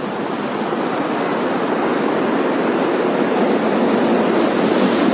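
Rainstorm: a steady rush of heavy rain and wind, slowly growing louder.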